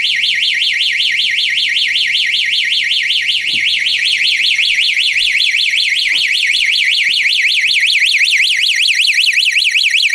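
Skylink HA-300 wireless household alert receiver sounding its built-in siren in alarm mode, set off by its motion sensor: a loud electronic siren warbling rapidly up and down in pitch without a break.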